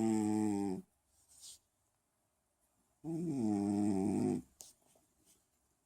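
A Munchkin cat snoring in its sleep: two long snores about three seconds apart, each lasting over a second, with a faint breath between them.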